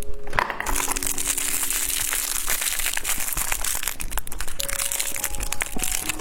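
Plastic wrapping crinkling and crackling as it is handled and opened, with a dense run of small crackles throughout, over soft background music.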